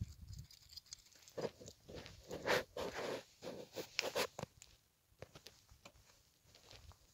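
Irregular footsteps scuffing and crunching on rough volcanic rock and grit, busiest in the first half and sparser toward the end.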